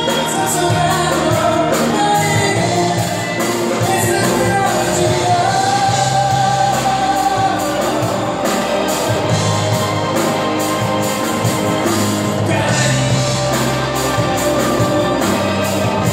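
Live band playing a pop-rock song through a PA: a singer's held, sustained notes over bass guitar, drum kit with steady cymbal strikes, and keyboards.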